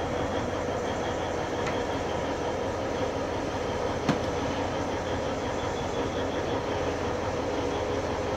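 Alishan Forest Railway diesel locomotive idling steadily at the station platform, a constant running hum with a steady tone. A single sharp click about four seconds in.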